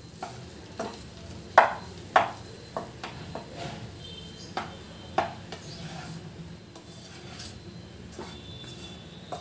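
A spatula stirring and tossing cooked rice in a nonstick kadai, with soft scraping and irregular knocks of the spatula against the pan. The sharpest knocks come about a second and a half in, about two seconds in, and about five seconds in.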